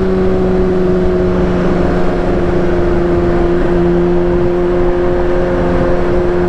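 2015 Kawasaki ZX-6R 636's inline-four engine through a Racefit aftermarket exhaust, pulling at a steady engine speed while riding. Its pitch eases down slightly a little past halfway.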